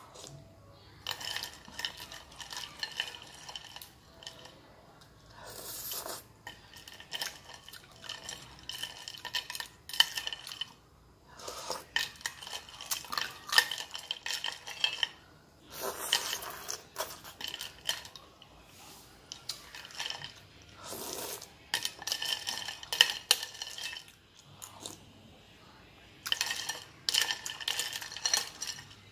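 Metal spoon stirring and scraping through crushed ice in a glass bowl, the ice clinking against the glass in repeated bursts a few seconds apart, with crunching of ice being chewed in between.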